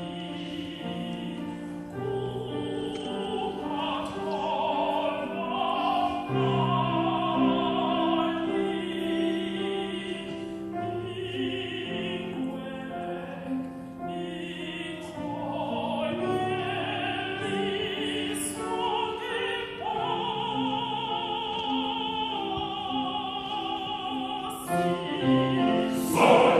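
A vocal group singing a song in harmony, several voices holding long notes with a wavering vibrato.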